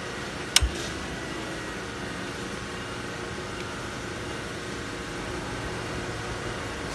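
Steady machine hum and noise, with a single sharp click about half a second in.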